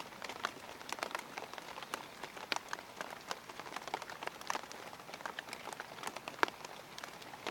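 Rain falling, a steady patter with many irregular sharp taps of single drops landing close by.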